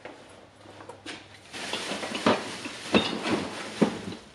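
Rustling and clattering of objects being handled, with three sharp clinks of hard items about two, three and nearly four seconds in.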